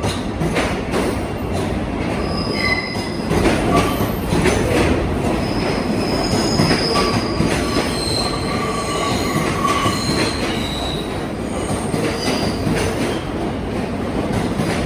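New York City subway train running on the rails, its wheels squealing in many short high-pitched squeals over a steady rumble, with scattered clicks from the track.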